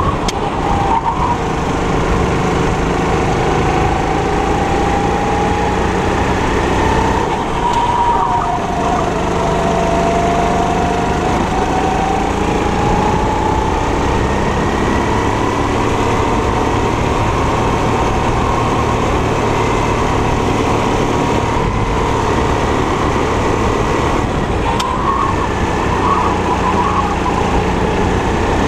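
Four-stroke 270 cc go-kart engine running hard through a lap, its pitch rising and falling with the throttle: it drops about a third of the way in and climbs again.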